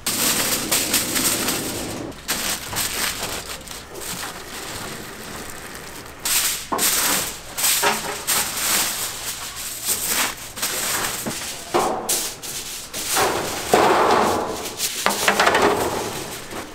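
Aluminium foil crinkling and rustling as sheets are spread and pressed over a gas range's burners. Near the end a steel tray slides and scrapes into place over the foil.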